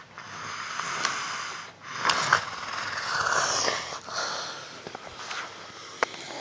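Snoring: slow, wheezy, airy breaths about two seconds long, three in a row, growing fainter after about four seconds.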